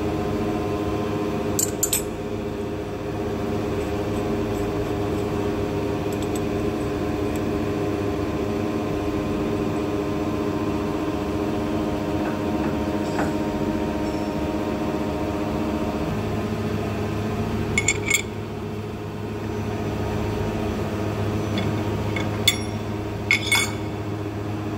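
Steady hum of a CNC milling machine standing with its spindle stopped, broken by a few sharp metallic clinks as a collet tool holder with a small end mill is fitted to the side-head spindle: about two seconds in, again about eighteen seconds in, and twice near the end.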